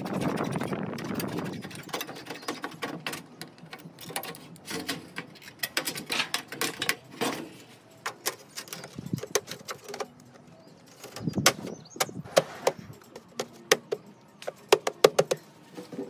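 Thin aluminium sheet panel being handled and pressed into place under a roof overhang: a rustling scrape at first, then irregular clicks and light knocks of the sheet, coming in quicker clusters in the last few seconds.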